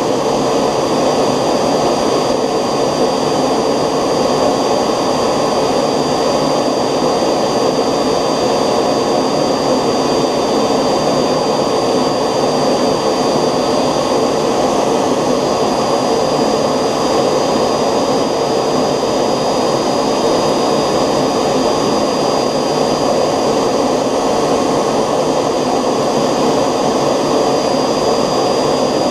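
Homemade 3D-printed model gas turbine (jet engine) running steadily: a loud, even rush of noise with a thin, high whine held steady over it.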